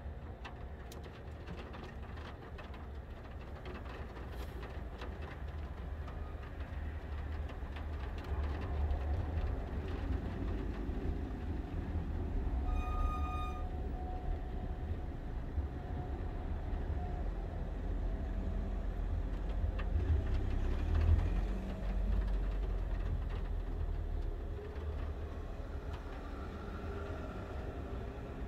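Road traffic passing slowly, over a steady low rumble that swells and peaks about three quarters of the way through. A short high-pitched squeal sounds once around the middle.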